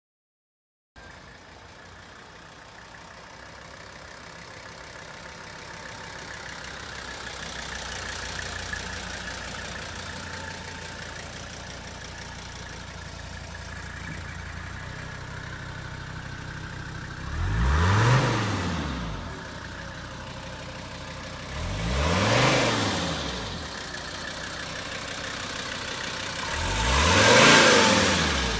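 A 1982 Mercedes-Benz 300SD's 3.0-litre five-cylinder OM617 turbodiesel idling steadily, then revved three times, each rev rising and falling in pitch over about a second. The last rev is the loudest.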